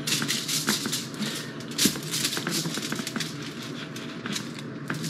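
Aluminium foil crackling and crinkling under a sheet of pizza dough as a round can is pressed down through the dough to cut out circles, with a continuous run of small crackles.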